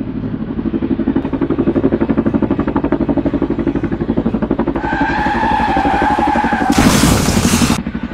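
A motor vehicle engine running with a rapid, even pulse. About five seconds in, a steady two-pitch tone sounds over it for nearly two seconds, followed by about a second of loud rushing noise.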